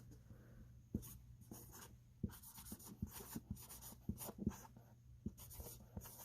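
Sharpie marker scratching across a storage tote in many short, irregular strokes as letters are written.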